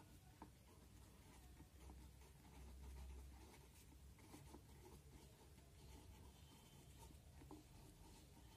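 Faint scratching of a marker pen writing on paper on a clipboard, in short irregular strokes over a low steady hum.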